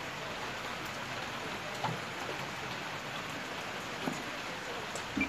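Light rain pattering steadily, a drizzle, with a few faint knocks near two seconds in, four seconds in and at the end.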